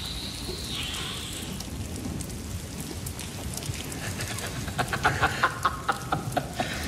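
A low, steady rumbling haze, then from about five seconds in a man laughing in short, rapid bursts, about five a second.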